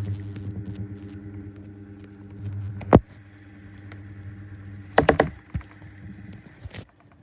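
2019 Schallen 12-inch desk fan running on low: a steady motor hum with scratching from worn-out bearings. Sharp knocks cut in, one about 3 seconds in and a quick cluster about 5 seconds in.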